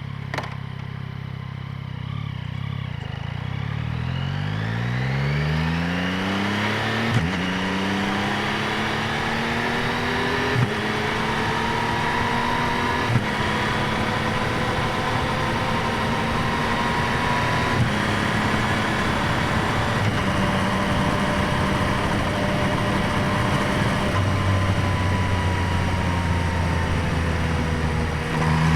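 2025 Yamaha MT-09's inline three-cylinder engine, heard through microphones at the airbox and by the exhaust, pulling away with its pitch rising over the first several seconds. Short clicks and drops in pitch mark a few gear changes, after which it runs on with a slowly climbing pitch.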